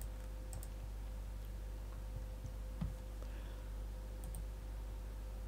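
Computer mouse clicks, two quick pairs about four seconds apart, over a steady low electrical hum.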